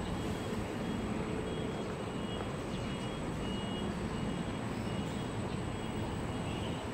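Steady low rumble of buses idling at the berths of a bus interchange, with no single event standing out.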